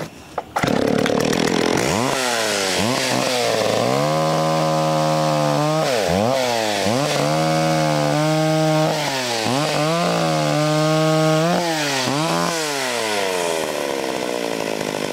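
McCulloch Timber Bear two-stroke chainsaw bucking a log: the engine is held at full throttle through the cut, its pitch dropping and climbing again several times as the trigger is worked. Near the end it winds down to idle.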